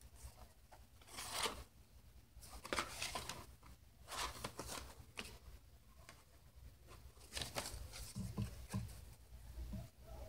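Stiff leaf-printed paper pages rustling and sliding against each other as they are leafed through and moved about by hand, in several short bursts with pauses between.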